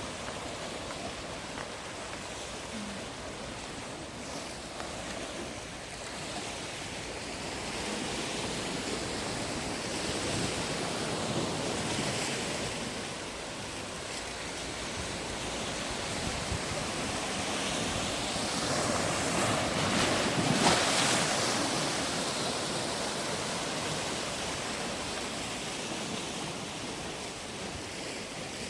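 Sea waves washing in against the shore, swelling and falling in slow surges, the loudest one about two-thirds of the way through.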